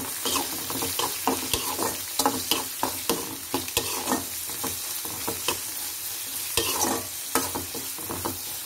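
A steel spoon scraping and clinking against a metal kadai in quick, irregular strokes as chopped onions, green chillies and curry leaves are stirred in hot oil, over a steady sizzle of frying.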